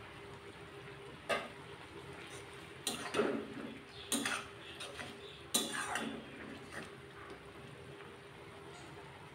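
A spatula stirring a simmering curry in a kadai, scraping and knocking against the pan in four short bouts about a second or two apart, over a faint steady hum.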